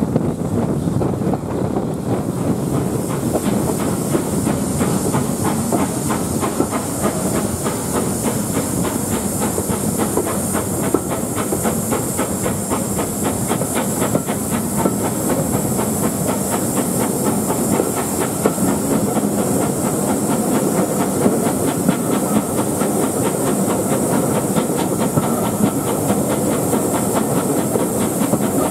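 Steam-hauled train running, heard from an open carriage window: a steady hiss of steam over the rumble and rattle of the moving train. The hiss grows louder a couple of seconds in.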